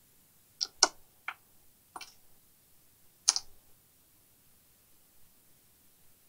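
Five sharp clicks and taps at irregular spacing as a small hand tool and parts are handled against a circuit board on a workbench; the loudest comes a little after three seconds.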